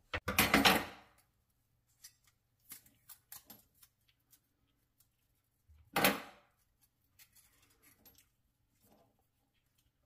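Handling noise from plastic and metal pop-up drain parts: a few short clatters and rustles, the loudest about a second in and around six seconds in, with light clicks in between.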